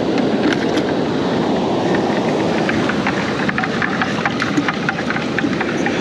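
Steady rushing of ocean surf and wind on the microphone, with many small clicks and taps close by.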